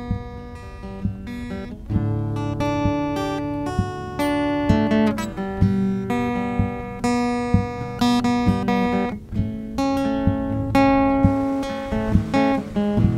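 Background music of an acoustic guitar playing arpeggios, its notes plucked one after another over sustained low bass notes.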